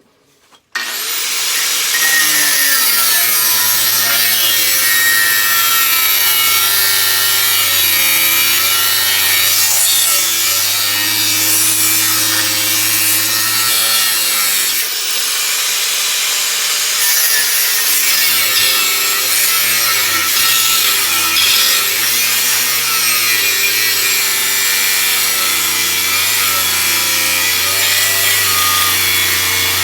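Electric power tool cutting into the steel of a khopesh blade, switching on about a second in and running continuously, its motor pitch dipping and recovering as it is pushed into the cut.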